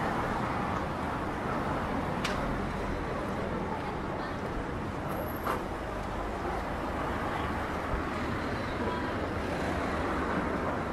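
Street traffic: cars moving slowly through a narrow street, a steady wash of engine and tyre noise. Two short sharp clicks stand out, one about two seconds in and one about five and a half seconds in.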